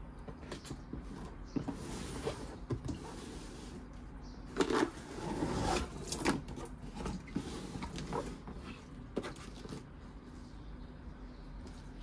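Cardboard packaging box being handled and opened: scattered taps and knocks, and about halfway through a louder scraping slide of cardboard on cardboard as the lid comes off, followed by light rustling of the packing inside.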